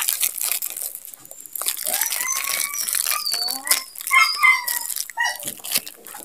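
Plastic wrapper being ripped open by hand, crinkling and rustling with many small clicks, mixed with several short high whines that rise and fall in pitch.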